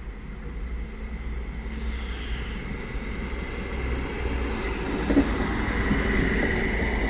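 Regional train moving slowly through a station: a steady low rumble with a high steady tone that grows louder in the second half, and a sharp knock about five seconds in.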